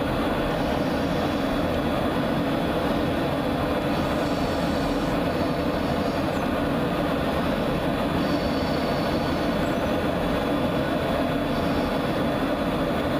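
Fighter jet in flight heard from inside the cockpit: engine and rushing air blend into one loud, even noise that barely changes.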